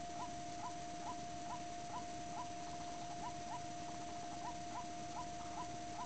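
White-breasted waterhen calls: short rising notes repeated about twice a second in a steady series, over a continuous steady tone.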